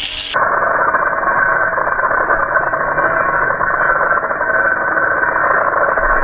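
Angle grinder with a sanding disc running steadily as it grinds a concrete ledge. It cuts in abruptly just after the start and sounds dull and muffled.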